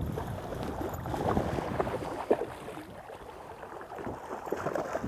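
Hooked bass thrashing and splashing at the water's surface beside the boat, in irregular splashes with the sharpest one a little over two seconds in.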